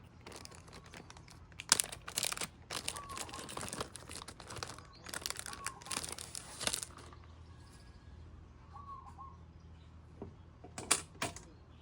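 Irregular bursts of crinkling and clicking handling noise, loudest in two clusters, with a few faint short chirps.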